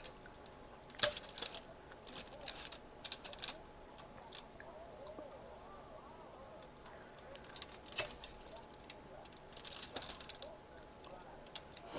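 Close-up eating sounds: crisp crunches and clicks in scattered clusters, from chewing crunchy fried snacks.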